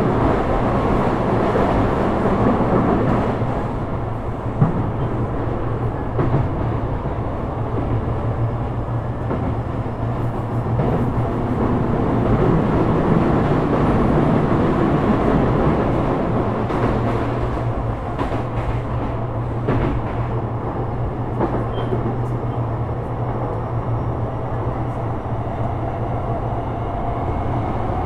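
Interior running noise of a Sotetsu 12000 series electric train, Mitsubishi IGBT-VVVF controlled, travelling between stations: a steady rumble of wheels on rail with a low hum. A single sharp click comes about four and a half seconds in.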